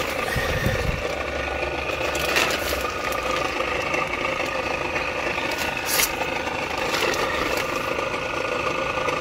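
A compressor running steadily with a low hum and an even whine, broken by a few brief rustles or knocks.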